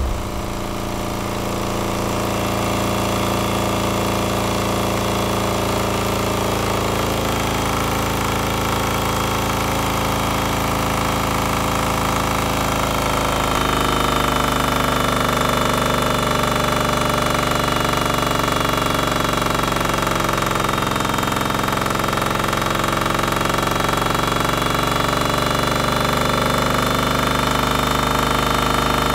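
Kohler single-cylinder diesel engine running hard on a dyno on diesel fuel, held under load at about 2800 rpm. About fourteen seconds in, its sound shifts, a steady high tone comes in and it gets slightly louder.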